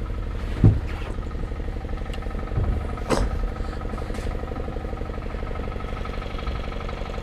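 An engine running steadily at an even speed, with a sharp knock less than a second in and another about three seconds in.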